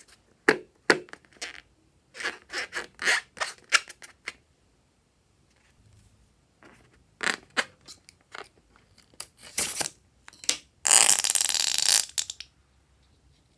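Slime being handled: sticky crackles and pops come in two loose runs. Near the end there is a loud rushing noise lasting about a second and a half.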